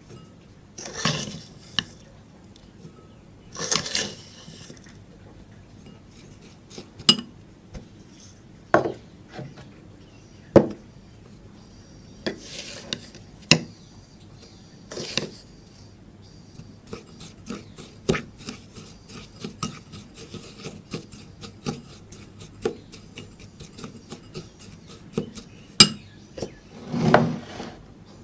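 A utensil clinking and scraping against a container while slime activator is mixed. Scattered knocks and short scraping rubs are followed, in the second half, by a run of quick light ticks, several a second.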